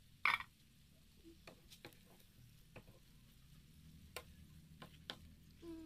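Shrimp being turned in a frying pan with a wooden spatula: scattered light taps and scrapes against the pan. One louder clatter comes just after the start.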